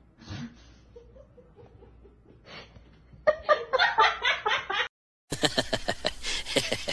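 A person laughing in a run of short bursts. The sound cuts off abruptly about five seconds in, and other noises follow.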